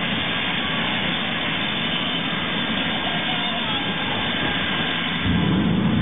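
Jet engine of a jet-powered fire truck running at full power with its afterburner lit, firing flame at a car: a steady, dense rushing noise that steps louder and deeper about five seconds in.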